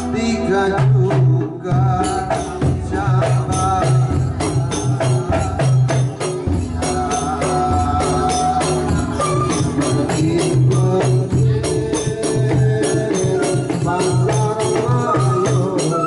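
Ndolalak folk music: frame drums and barrel-shaped kendang hand drums beat a quick, steady rhythm under an electronic keyboard melody.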